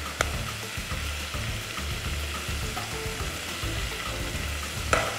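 Ground-meat meatballs sizzling steadily as they fry in hot oil in a pot, with a sharp click from the serving spoon just after the start and again near the end as they are lifted out onto a plate.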